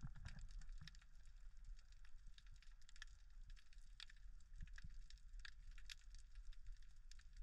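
Underwater reef crackle: a dense, irregular patter of faint small clicks, with a low rumble of water underneath.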